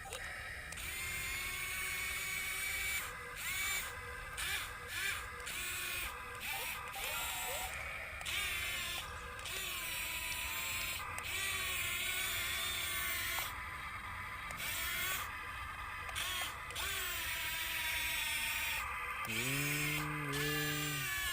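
Small electric motors whining, rising and falling in pitch, with frequent short breaks. A low steady hum with overtones comes in near the end.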